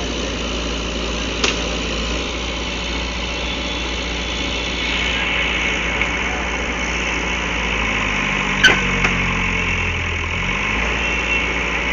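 Diesel engine of a JCB backhoe loader running steadily under load while it pushes a truck stuck in mud. There is a sharp knock about a second and a half in and a louder crack about two-thirds of the way through, and the low engine note shifts near the end.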